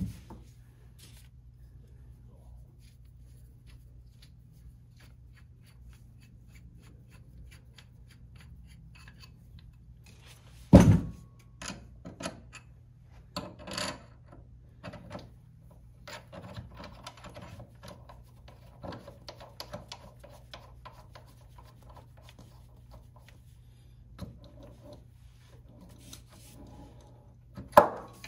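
Handling noises from a mini magnetic drill press as its feed handle is fitted: a sharp knock near the start and another about eleven seconds in, then scattered light clicks and knocks of the handle and metal parts, over a faint steady low hum. The drill motor is not running.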